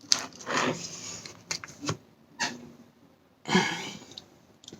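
A person eating a spoonful of raspberry trifle: a few short breaths and mouth noises, with small sharp clicks between them.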